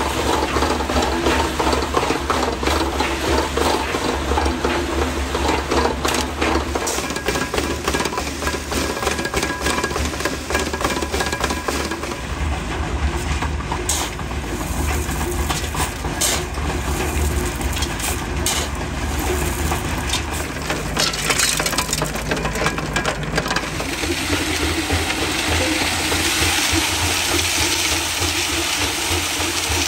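Nuffield 4/60 tractor's engine running steadily, turning a Teagle cement mixer drum. Midway a shovel scrapes into a gravel heap and stones clatter, and near the end gravel churns and rattles in the rotating drum.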